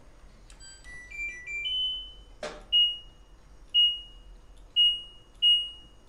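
LG DirectDrive front-loading washing machine's control panel: a short tune of beeps rising in pitch as the machine is switched on, a loud click about two and a half seconds in, then single short beeps about once a second as the program dial is turned to select a wash program.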